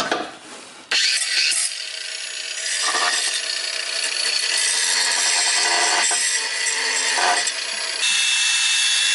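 Cordless power tool running against the exhaust fittings under a Ford Fiesta ST, driving bolts on a newly fitted cat-back exhaust. It starts about a second in and runs almost without a break, settling into a steadier high whine near the end.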